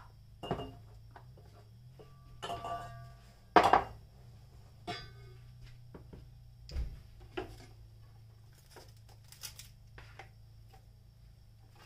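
Kitchen handling noises: a stainless steel mixing bowl knocked and set down on the counter, two of the knocks leaving short metallic rings, the loudest a little under four seconds in. Scattered lighter clatters follow as scraps are swept off a plastic cutting mat, over a low steady hum.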